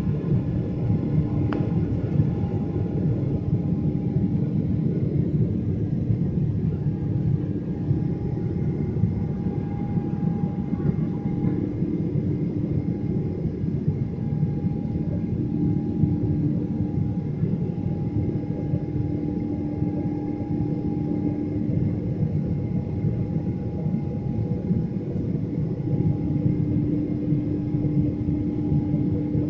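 Cabin noise of a Boeing 777-300 climbing after take-off, heard beside the wing engine. The turbofan and airflow make a steady low rumble with a few steady hum tones over it.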